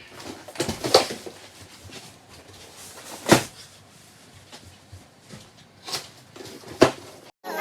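Scattered knocks and clunks of household items being handled and moved while a closet is emptied. The sharpest knock falls about a third of the way in, with further clunks later.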